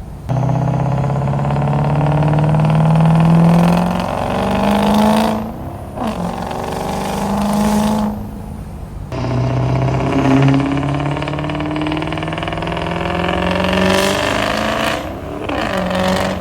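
A built Ford 6.0 Powerstroke V8 turbodiesel running on its normal exhaust tip, revving hard. It climbs steadily in pitch several times, and each climb breaks off in a sudden drop before it pulls again.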